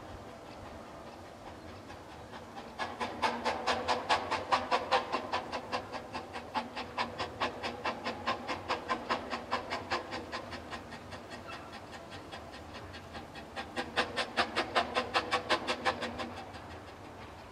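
2005-built Quarry Hunslet 0-4-0 saddle tank steam locomotive working, its exhaust chuffing in quick, even beats about five a second. The beats start a few seconds in, swell, ease off, swell again to their loudest, then fade near the end.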